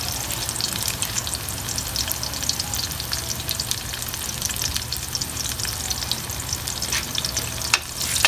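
Chopped garlic and red onion sizzling and crackling in hot oil in a metal wok. Near the end a metal spatula stirs and scrapes the pan with a few sharper clicks.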